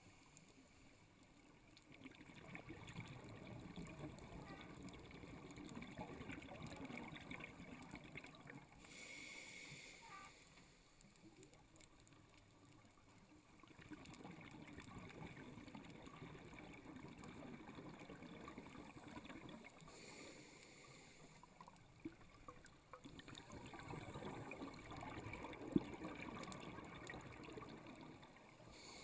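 Faint scuba regulator breathing underwater: long stretches of bubbling exhaled air, with a short hiss of inhalation between them, twice.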